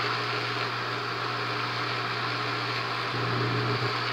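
Bell & Howell 8mm film projector running steadily, its motor hum growing louder about three seconds in. In this setting it doesn't sound good; the projector needs a new belt.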